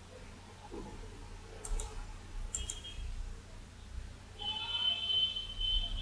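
A few faint clicks, then a steady high-pitched electronic alarm tone starts about four and a half seconds in and holds.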